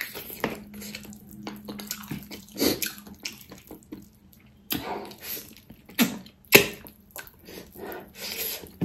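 Wet eating sounds of a person biting and chewing a piece of pickled pork trotter held in the hand: irregular smacking, sucking and sharp wet clicks, the loudest a little past the middle.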